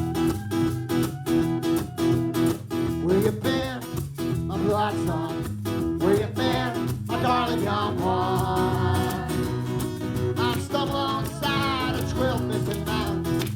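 Live acoustic roots music: an acoustic guitar strummed in an even rhythm, with a voice coming in over it a few seconds in.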